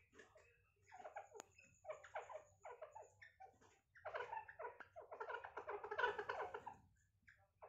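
Grey francolins giving short calls over and over, sparse at first, then a dense run of chattering calls from about four to seven seconds in, loudest near six seconds.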